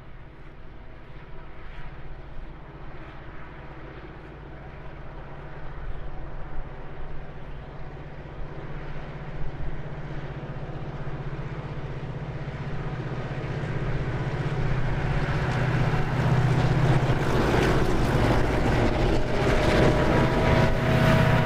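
Diesel locomotives hauling a loaded wheat train, approaching and passing close by: a steady low engine hum that builds over the last ten seconds and is loudest near the end as the locomotives go past, with wheel-on-rail clatter joining in.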